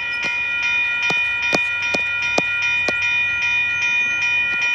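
Railroad grade-crossing warning bell ringing steadily, about two strikes a second, each strike ringing on. It is the warning that a train is approaching the lowered gates.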